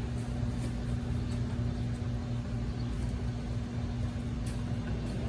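Steady low machine hum with a constant drone and a few faint light taps.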